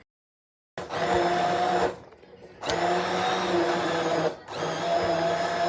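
Electric blender running in three short pulses, a steady motor whine each time, as the qeema's meat and chickpeas are ground to a paste.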